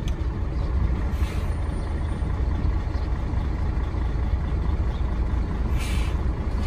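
Loaded heavy truck's diesel engine idling with a steady low rumble, with two short hisses of air from its air brakes, about a second in and near the end.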